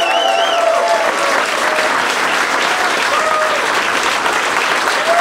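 Audience applauding steadily, with a few cheering voices near the start.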